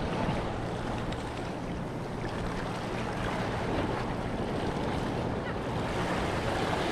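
Steady wash of sea surf against jetty rocks, with wind on the microphone.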